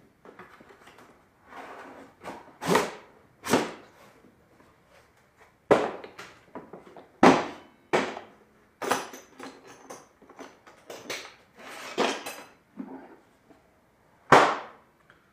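Unpacking a new plate joiner from its box: about ten sharp clacks and knocks from the box and its contents being opened and handled, with softer rustling of packaging between them.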